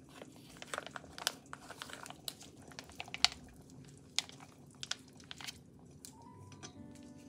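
Plastic soup pouch crinkling as it is handled and squeezed out into a steel pot, with scattered small clicks and taps. Soft music comes in near the end.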